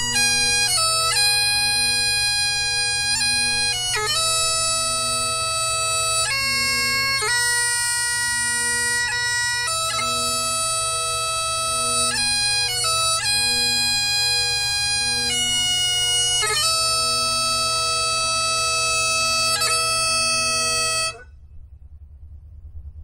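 Great Highland bagpipes playing a slow melody with quick grace notes over a steady drone. The music stops abruptly about 21 seconds in, leaving only a faint low rumble.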